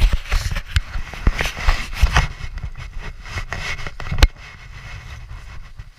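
A mountain biker's fall onto dry leaf litter, heard through a chest-mounted action camera: a sudden loud start, then a jumble of knocks, scraping and the crackle of dry leaves and twigs, with one sharp loud knock about four seconds in, after which only quieter rustling remains.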